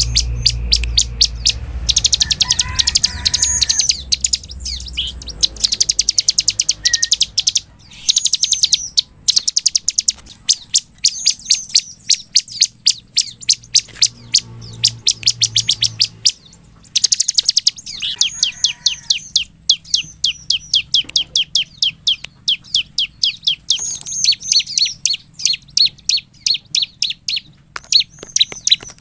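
Ciblek (a prinia) singing: long runs of fast, sharp repeated notes high in pitch, broken by a few short pauses.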